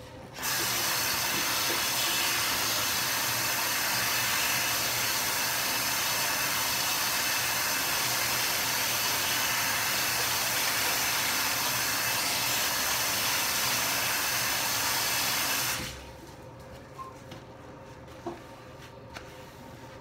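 Bathroom sink faucet running: a steady hiss of water that comes on just after the start and is shut off abruptly about 16 seconds in.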